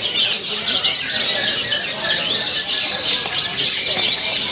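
Long-tailed shrikes (cendet) singing at a songbird contest: a dense, unbroken stream of fast, overlapping chattering and whistled phrases from several birds at once.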